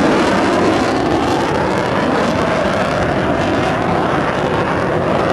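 Jet noise from a Swiss Air Force F/A-18 Hornet's twin General Electric F404 turbofans as it flies overhead: a loud, steady rush of engine sound.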